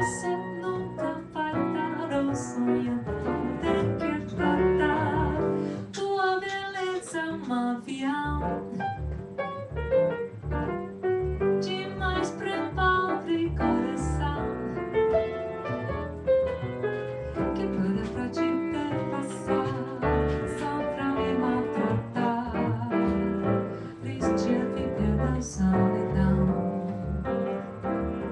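A woman singing into a microphone with piano and pizzicato upright double bass accompaniment, played live. The bass plucks a steady walking line of low notes under the piano chords.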